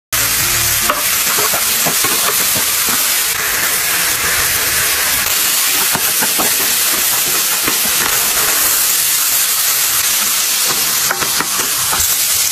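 Oil sizzling steadily in a nonstick frying pan as garlic and meat are stir-fried, with a wooden spatula scraping and clicking against the pan throughout.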